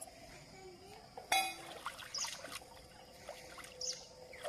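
Pond water sloshing and pouring from a steel bowl as cut fish pieces are rinsed in it, with one sharp clatter about a second in. A few short, high chirps come and go.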